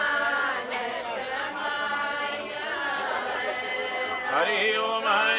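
A group of voices singing together without instruments, in a chant-like unison.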